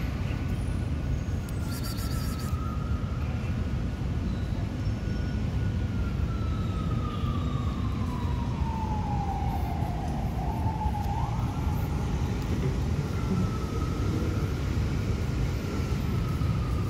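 A distant siren wailing: one slowly wavering tone that sinks in pitch over several seconds and then jumps back up about eleven seconds in, over a steady rumble of city traffic.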